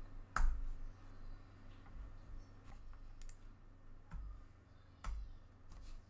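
Computer keyboard keys pressed one at a time: about six separate sharp clicks spread over several seconds, the loudest about half a second in. A faint low hum runs underneath.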